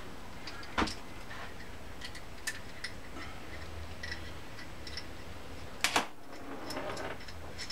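Scattered light clicks and knocks of small metal engine parts being handled on a workbench as an outboard connecting rod is wiped clean of grease with a shop rag, with a sharper knock about a second in and two more near the end, over a low steady hum.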